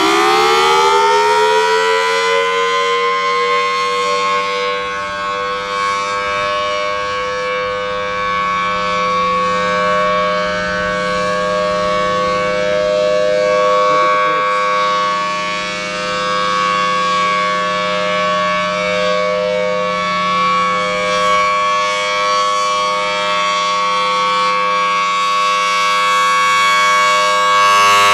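Federal Signal Thunderbolt 1000T dual-tone outdoor warning siren finishing its wind-up, its pitch rising and levelling off about two seconds in. It then holds a loud, steady two-tone wail during its test.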